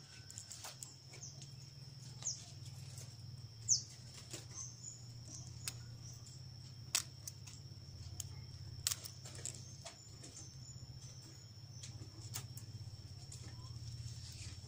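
Quiet garden ambience: two short, falling bird chirps in the first four seconds, under a steady thin high-pitched tone and a low hum. A few sharp clicks around the middle come from pruning shears snipping a red dragon fruit off its cactus stem.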